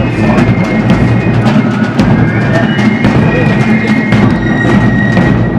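Military drum corps playing a march on snare and bass drums, with a high piping melody over the drumming.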